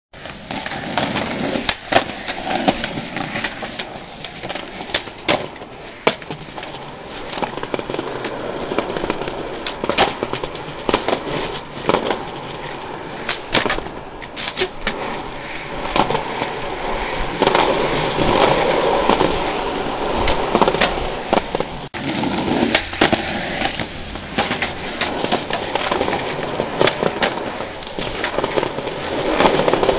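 Skateboard wheels rolling on concrete, with repeated sharp clacks as the board is popped and lands during tricks.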